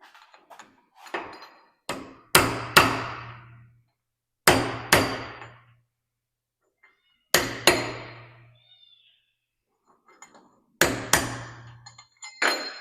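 Hammer blows on metal, mostly in pairs every two to three seconds, each blow ringing out briefly.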